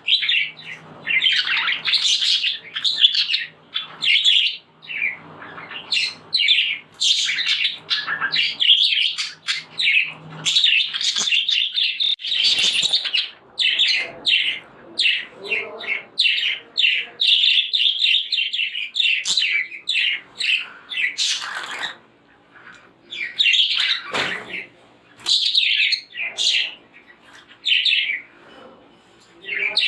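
Budgerigars chirping and warbling rapidly, a dense run of chattering calls that breaks into separate chirps with short gaps in the last third.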